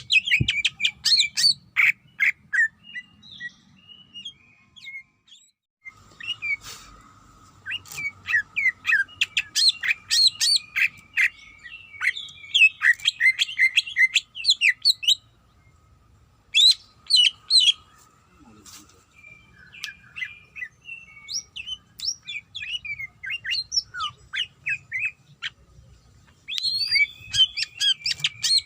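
Cucak ijo (green leafbird) singing a fast, varied chattering song of sharp chirps and short whistles, delivered in dense bursts with brief pauses, the song used to call out to a rival.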